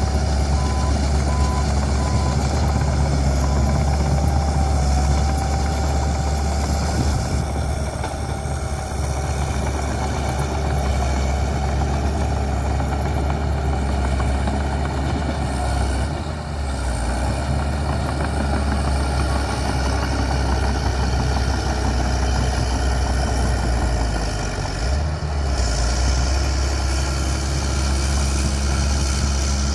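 Bulldozer's diesel engine running steadily with a deep rumble, a faint whine over it for about the first half.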